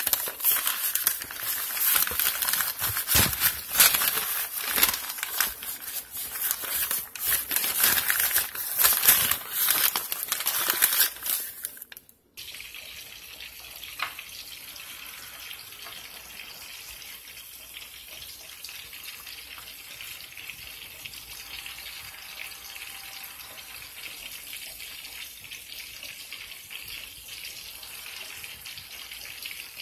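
Loud crinkling and rustling of the wrapping that holds leftover cornmeal breading as the mess is cleaned up, for about the first twelve seconds. Then, after a sudden break, a steady hiss of breaded flounder fillets frying in bubbling oil in a pan.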